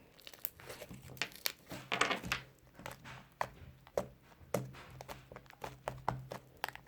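Fluffy slime made with shaving foam being squeezed and stretched by hand: irregular small crackles and squishes, with a faint steady low hum underneath.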